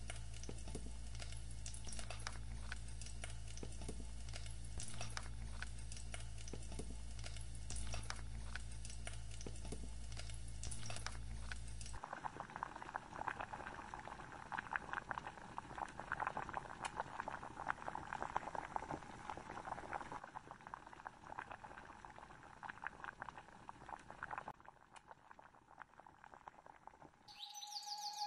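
Chopped spring onions sizzling and crackling as they sauté in a frying pan, over a low steady hum. About twelve seconds in, the hum stops and the sound changes to teriyaki chicken sizzling in its thick sauce in a wok, growing faint near the end.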